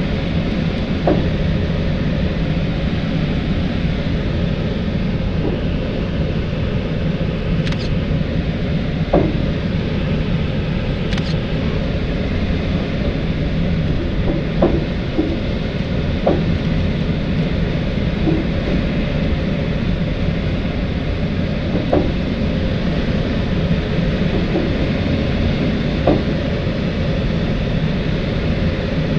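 Steady rush of airflow around the cockpit of an L-23 Blaník glider in flight, with a few faint short ticks spread through it.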